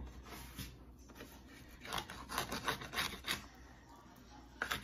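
Kitchen knife sawing through a raw salmon fillet against a plastic cutting board: a run of quick rasping strokes about two seconds in, and a few more near the end.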